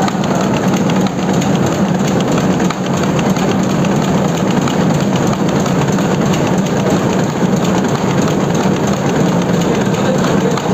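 Web-fed newspaper printing press running at speed, the paper web feeding through its rollers: a steady, loud mechanical clatter over a constant hum.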